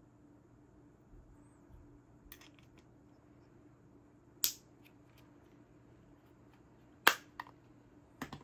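A few separate sharp plastic clicks and snaps as keycaps are pressed into a small plastic keycap case, the loudest about seven seconds in, with a quick double click near the end.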